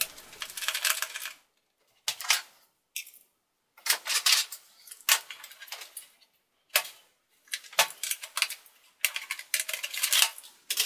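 Irregular bursts of light clicking and rattling from a screwdriver, small screws and the plastic parts of a ThinkPad T540p laptop as the optical drive's screw is taken out and the drive is pulled from its bay.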